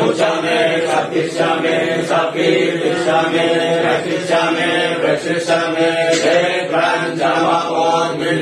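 Sanskrit mantras chanted without a pause for the abhishek of a Shiva lingam, a steady recitation in one voice-like line that breaks briefly every second or so.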